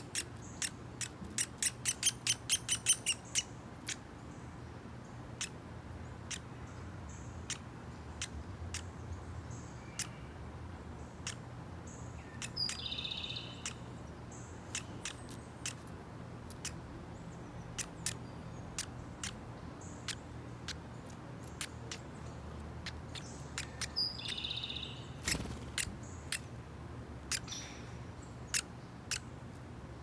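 Downy woodpeckers calling: a fast run of sharp chip notes in the first few seconds, then scattered single chips, with two short calls that fall in pitch about 13 and 24 seconds in.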